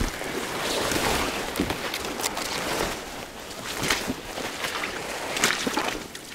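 Footsteps squelching and sloshing through a waterlogged bog, in uneven steps.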